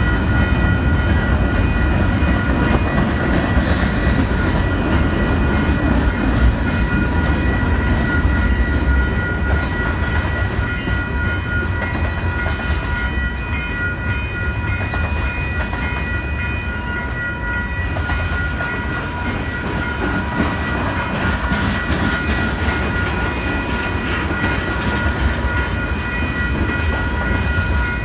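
Canadian Pacific freight train rolling past close by: a steady low rumble of freight cars on the rails, with a steady high ringing tone over it.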